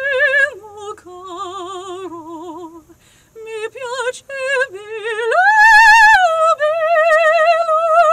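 A woman singing an operatic line unaccompanied in a trained soprano voice with wide vibrato: a run of short notes, then a climb to a loud high note a little past five seconds in that settles onto a long held note.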